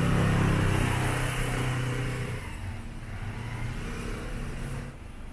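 A motor vehicle passing close by on the street, its engine loudest about the start and fading away over the next couple of seconds, leaving a lower steady traffic hum.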